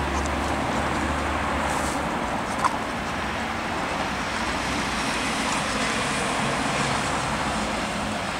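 Steady rush of stream water flowing over a shallow riffle and rocks, with one short click about two and a half seconds in.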